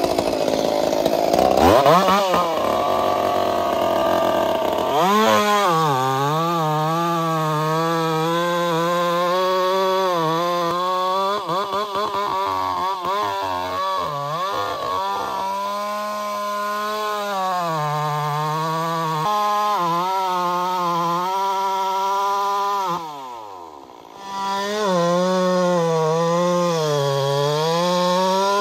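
Stihl 044 two-stroke chainsaw cutting wood, its engine pitch dipping and recovering as the chain loads in the cut. A little after twenty seconds in, the engine winds down and drops almost to idle, then revs back up and carries on cutting.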